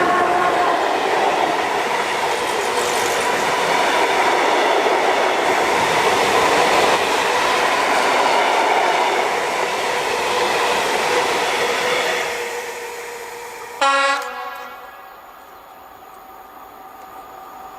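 Freight train of open coal wagons rolling past, a steady rumbling clatter with a faint whine of tones over it, fading away after about 12 seconds. Just before 14 seconds a short, loud horn-like blast cuts in, followed by a much quieter, distant train sound.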